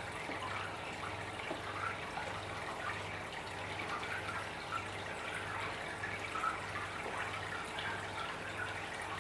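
Aquarium water trickling and dripping steadily, over a low hum that pulses about twice a second.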